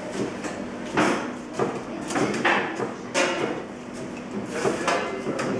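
A thin flexible filleting knife scraping along the bones of a John Dory in about five short strokes as the fillet is cut away from the frame.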